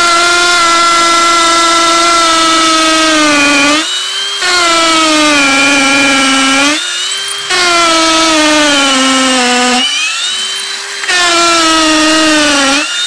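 Ryobi P251 brushless hammer drill boring into a concrete block with a masonry bit: a loud, steady buzzing whine whose pitch sags as it works under load. It stops briefly three times, at about four, seven and ten seconds in, then picks up again.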